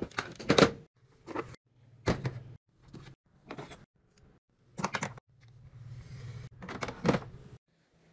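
Plastic Nerf toy blasters being handled and put away: clacks and knocks from the toys being picked up and set down. The sound comes in about seven short bursts, each cut off suddenly, with a low hum under some of them.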